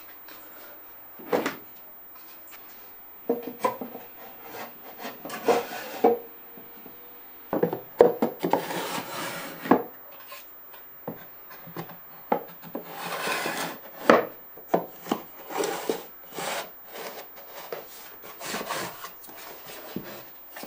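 Plywood trays and boxes being handled on a workbench: a string of wooden knocks and clacks, with wood sliding and rubbing against wood as the slotted trays are pushed into a small plywood drawer cabinet.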